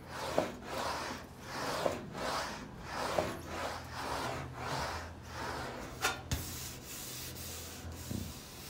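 English wheel rolling a sheet-aluminium cowling panel back and forth between its wheels, a rubbing swish with each pass, about one and a half passes a second. The passes stop after about six seconds with a sharp click, and it is quieter after that.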